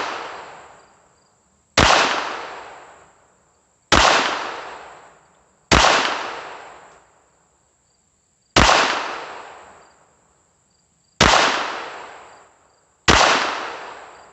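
Glock 44 .22 LR pistol fired six times in slow, deliberate shots about two to three seconds apart, each sharp crack trailing off in a long echo.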